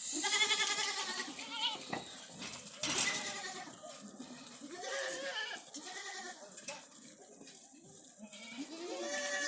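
Goats bleating: several quavering calls, the loudest right at the start, more around the middle and another near the end.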